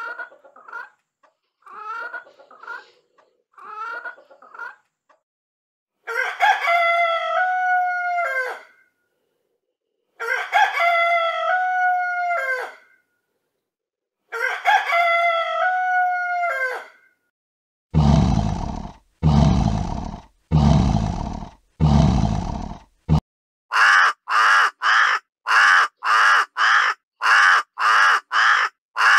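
A hen clucking in short groups, then a rooster crowing three times, each crow about two and a half seconds long. After that come four long, harsh calls, then a quick run of crow caws at about two a second.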